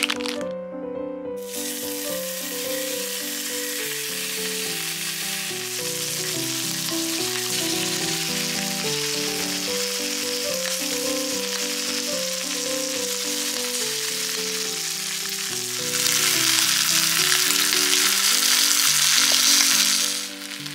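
Bacon and two eggs sizzling as they fry in a frying pan, starting about a second in and getting louder near the end, over background music.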